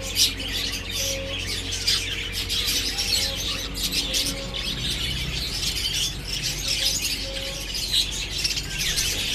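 Many small caged birds chirping and chattering together in a dense, continuous twitter, over a low steady hum.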